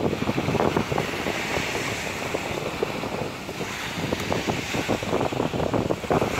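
Small sea waves breaking and washing up a sandy beach, with wind buffeting the microphone.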